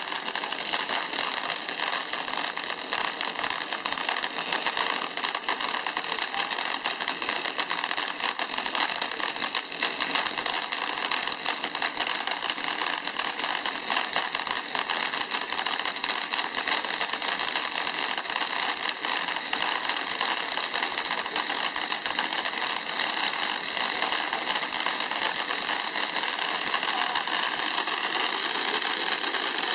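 Volcano (fountain) firework burning: a steady hiss of its spark jet with fine crackling.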